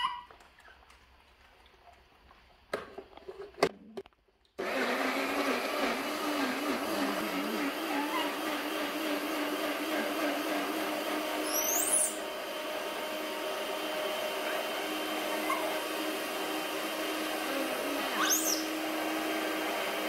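Small portable blender with its jar fitted to the base: a few clicks, then the motor starts suddenly about four and a half seconds in and runs steadily, blending mango and milk. Short rising squeaks from the baby monkeys sound over it near the start and near the end.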